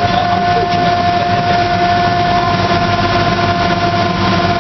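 Engine of an amphibious tour vehicle running steadily while it cruises on the water, a constant drone with a steady high whine over it.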